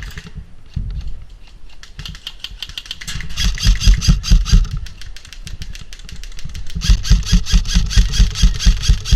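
Airsoft rifle firing two long full-auto bursts, rapid, evenly spaced cracks, the first about three seconds in and the second, longer, about seven seconds in.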